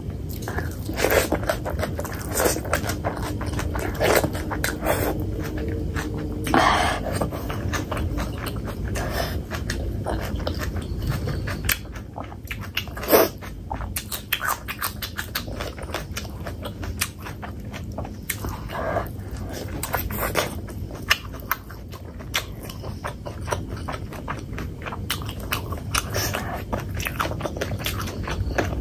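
Close-miked eating sounds: wet chewing, smacking and squelching of fatty pork curry and rice eaten by hand. There is a single sharp, louder bite about thirteen seconds in, as a raw green chili is bitten.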